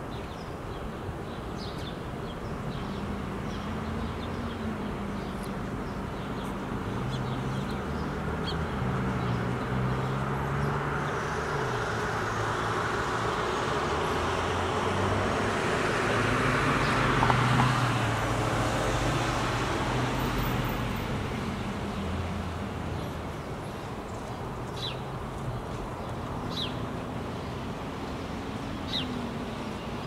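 Road traffic: a passing vehicle's engine and tyre noise swells to its loudest just past the middle and then fades, over a steady low hum. A few short, high bird chirps come near the end.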